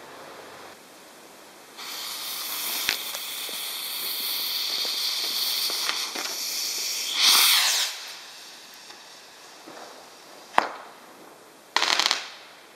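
Firework rockets: a long hiss of several seconds with a sharp bang in it, then a louder whoosh about seven seconds in. Another sharp bang comes about ten and a half seconds in, and a short burst of crackling near the end.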